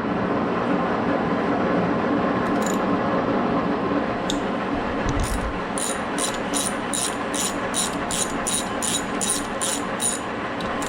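Wrench work on the T5 transmission's top-cover bolts: a steady loud mechanical whir, with a run of quick ratchet clicks, about three a second, in the second half.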